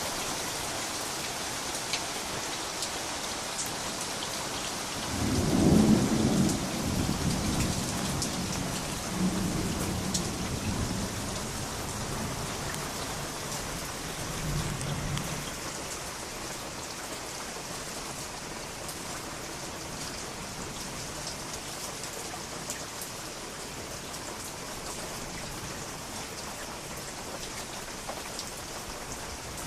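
Steady heavy rain falling, with a rolling peal of thunder that breaks in about five seconds in and rumbles on in waves for some ten seconds before fading back under the rain.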